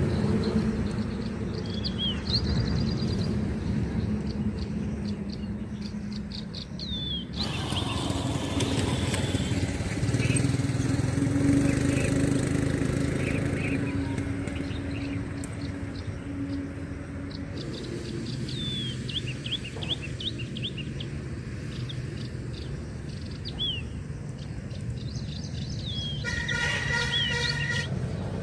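Birds chirping in short, repeated sweeping calls over steady outdoor background noise. A louder stretch of rushing noise starts abruptly about seven seconds in and cuts off about ten seconds later.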